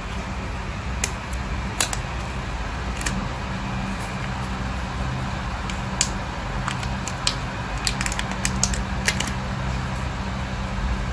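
Scattered sharp clicks and ticks of a black strip of material being handled and bent by hand, a dozen or so, bunched between about six and nine seconds in. Under them runs a steady low hum of background noise.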